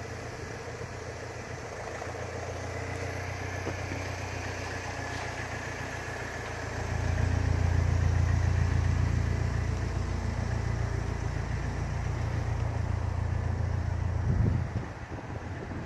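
Vauxhall Vivaro van's diesel engine idling, a steady low hum that grows louder about seven seconds in and drops back near the end.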